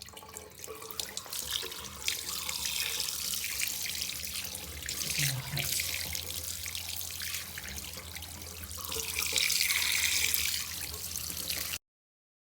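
Water running from a tap into a sink, splashing unevenly. It grows louder about nine seconds in, then cuts off suddenly near the end.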